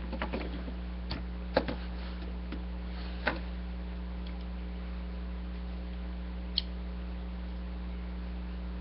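A few sharp plastic clicks and taps from G1 Transformers Terrorcons toy figures being handled and transformed, over a steady low electrical hum.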